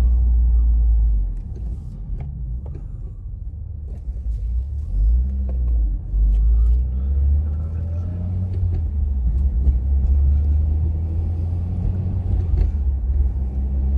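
Turbocharged 2.0-litre four-cylinder of a 2015 Mitsubishi Lancer Evolution X GSR running while driving, breathing through a Cobb Stage 1+ SF intake on the Cobb Stage 1 map: a deep rumble that eases off about a second in and builds again around five and seven seconds.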